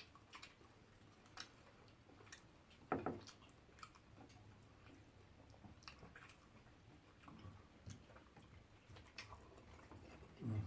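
Faint eating sounds: quiet chewing and scattered small mouth clicks, with a brief louder sound about three seconds in and another near the end.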